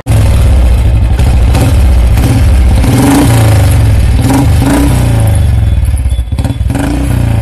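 Royal Enfield motorcycle engine running loud and close, revved in several short blips partway through.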